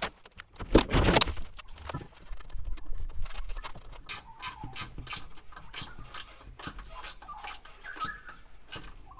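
Hand ratchet clicking in quick even strokes, about three clicks a second, while an air-intake snorkel is tightened back into place. A few knocks of the part being fitted come about a second in.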